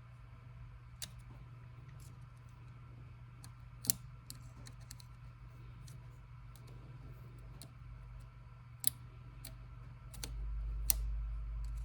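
Sparse small clicks and ticks of a tool working the brush spring in a cordless drill motor's brush holder, with a few sharper clicks. A low rumble comes in near the end.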